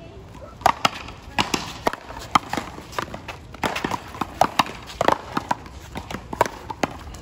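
A rubber ball being hit back and forth in a one-wall paddleball rally: a quick, irregular run of sharp smacks as the ball strikes solid paddles and bounces off the concrete wall and court.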